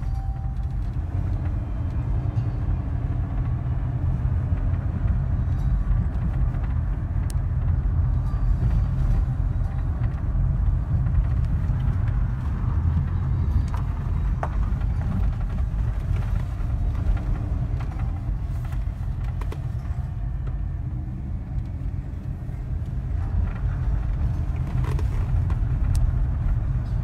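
Steady low tyre and engine rumble heard from inside a car's cabin as it drives slowly over rough, milled asphalt, with a few faint clicks.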